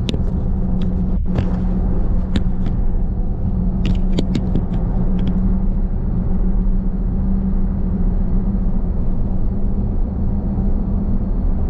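Steady road and engine noise inside a moving car's cabin: a low rumble with a constant drone, and a few light clicks in the first few seconds.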